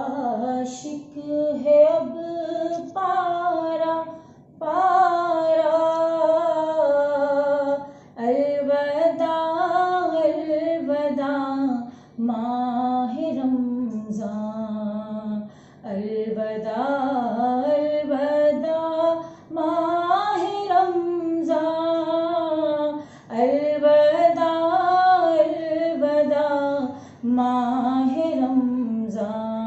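A woman singing alone, without accompaniment, in long wavering phrases with short pauses for breath between them.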